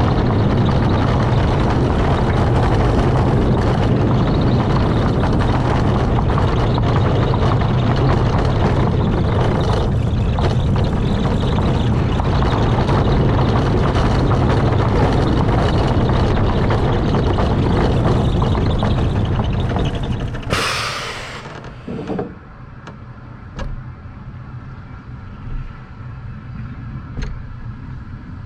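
Wind and track rumble from a roller coaster train running at speed. About two-thirds through comes a loud hiss of about a second as the train hits the final brakes. The train then rolls on more slowly and quietly, with a few sharp clicks.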